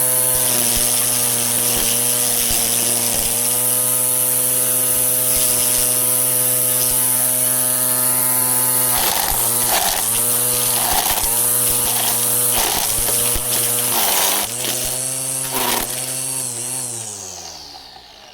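Black and Decker LST136W 40V cordless string trimmer running on its freshly replaced gear spindle and housing: a steady motor whine. About halfway through, the pitch dips briefly several times with bursts of noise. The motor then winds down to a stop near the end.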